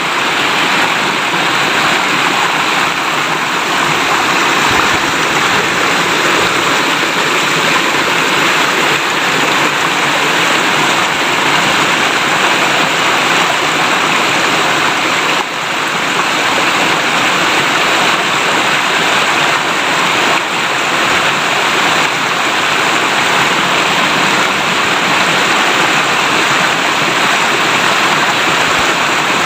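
River water flowing and babbling steadily, a continuous rushing splash with a brief dip in level about halfway through.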